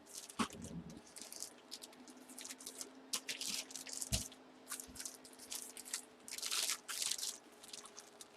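Packaging being handled: irregular crinkling and rustling in short bursts, over a faint steady hum.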